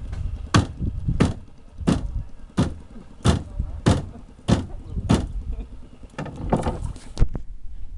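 A steady run of sharp knocks, about one every two-thirds of a second, then a few quicker, irregular ones near the end, over a low, steady rumble.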